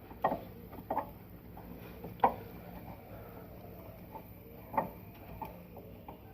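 Five or six sharp, short knocks and clicks at irregular intervals over a faint steady hum.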